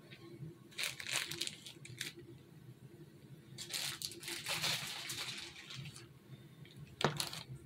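Clear plastic piping bag crinkling as it is handled and refilled, in two bursts of rustling, with a sharp tap near the end.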